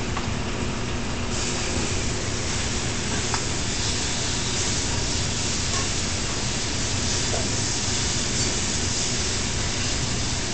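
Steady rushing hiss of a commercial gas range's burners under sauté pans, with spinach sizzling in hot oil. The high hiss grows louder about a second in.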